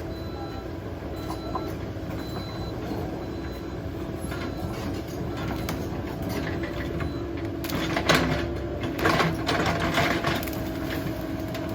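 Caterpillar 308 excavator's diesel engine running steadily under work. From about eight seconds in come a series of sharp cracks and knocks.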